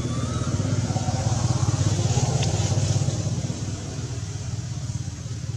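A motor vehicle's engine running close by, getting louder up to about two seconds in and then easing off as it passes.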